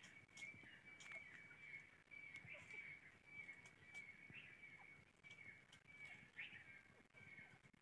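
Near silence: faint outdoor ambience with a thin, steady high trill that breaks off and resumes every second or so, and a few faint bird chirps.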